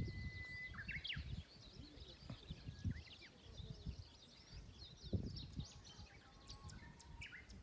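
Small birds chirping and calling, with a short steady whistled note at the start, over faint low thumps and rumble.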